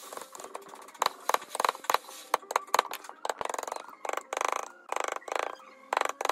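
Hand tools working wood: a scatter of sharp taps and knocks, then from about halfway through a run of short rasping strokes, each about half a second long.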